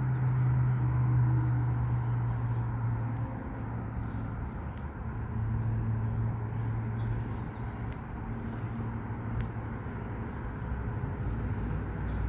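A motor engine running with a steady low hum that fades a few seconds in and then comes back. Faint bird chirps sound over it.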